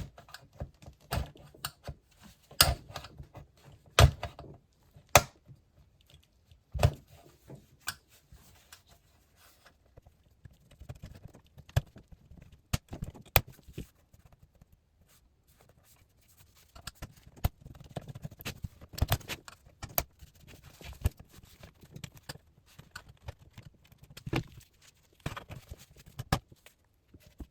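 Hand-tool and handling noise at a small plastic cover that holds a circuit board inside a Dell LCD monitor: irregular sharp clicks and knocks, the loudest about four and thirteen seconds in, with stretches of scraping between them.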